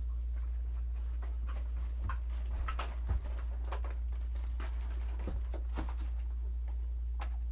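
A puppy playing and nipping: scattered light clicks and taps, with a louder knock about three seconds in, over a steady low hum.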